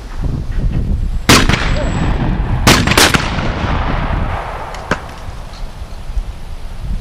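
Shotgun shots at a skeet range: one about a second in, then two in quick succession, each followed by a rolling echo. A fainter crack follows about five seconds in.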